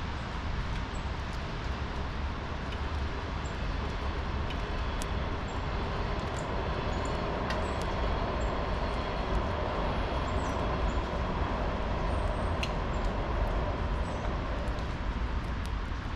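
Outdoor ambience: a steady rumbling noise that swells a little in the middle, with faint, short, high bird chirps scattered through it.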